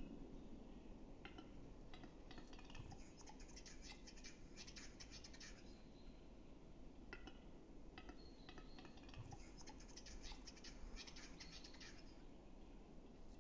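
Male western capercaillie's display song, given faintly and twice: a run of dry clicks that quicken, each run giving way to about three seconds of scratchy whetting notes.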